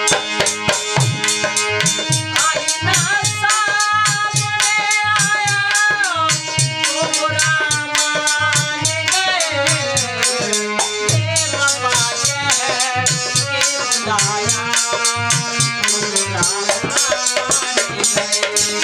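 Live Indian folk ghazal music: a harmonium plays sustained chords and melody over steady dholak drum beats, with a jingling rattle-like percussion on top. A male voice sings in parts of the passage.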